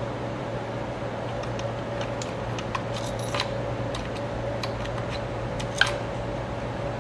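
Scattered light metallic clicks and taps of a screwdriver and hands working on the slide projector's transformer screws, the sharpest near the end, over a steady hum.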